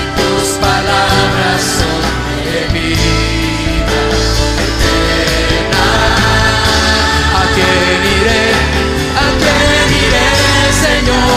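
Christian worship song: a band playing with singing voices.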